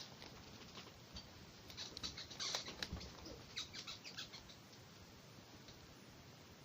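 Faint irregular scratching and tapping clicks, a quick cluster about two to four seconds in, then near quiet.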